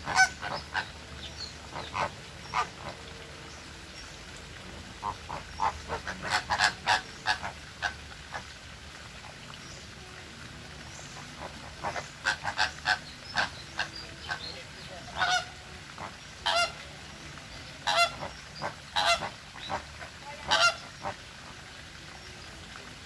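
Flamingos honking with goose-like calls: quick runs of short honks, then louder single honks about a second apart in the second half.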